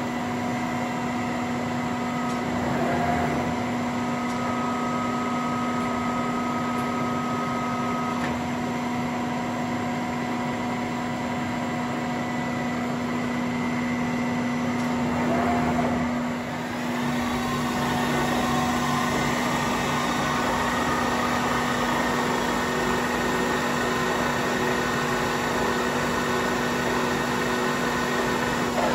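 Union BFT 90 CNC table-type horizontal boring and milling machine running under power: a steady machine hum with one constant tone. About halfway through, the sound becomes fuller and slightly louder.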